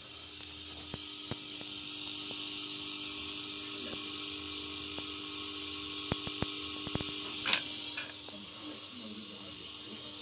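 Metal-halide lamps warming up in their street-light fittings on the choke ballast after starting on mains voltage: a steady hum with a hiss above it. A few sharp ticks come about six to eight seconds in, the loudest just before the hum drops away.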